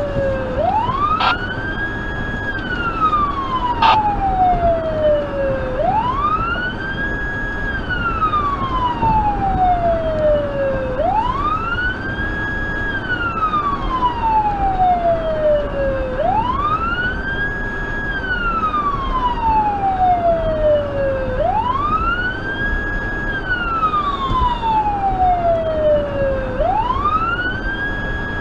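Federal Signal Touchmaster Delta electronic siren sounding a wail. Each cycle rises quickly, holds briefly at the top and falls slowly, about once every five seconds, heard from inside the car over steady road noise. Two sharp clicks come in the first four seconds.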